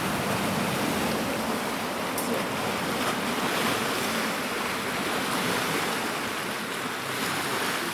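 Turbulent river water rushing and churning steadily as a tidal surge drives it upstream against the river's normal flow.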